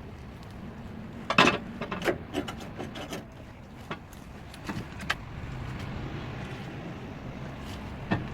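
A sharp metallic knock, then a string of smaller clicks and rattles, over a low steady hum; it fits the underbody clunk a 2-inch-lifted SsangYong Korando Sports makes when shifted into gear from a stop, which the owner puts down to the propeller shaft. A few single clicks follow later.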